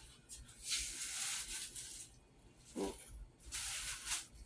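Kitchen handling sounds: two short hissing rustles, with a light knock between them a little under three seconds in.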